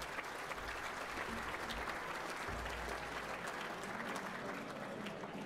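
Audience applauding, the steady clapping of many hands.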